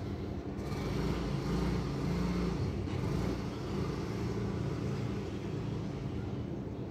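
City road traffic: a steady low hum of engines, with a vehicle passing that swells to its loudest between about one and three and a half seconds in, then eases back.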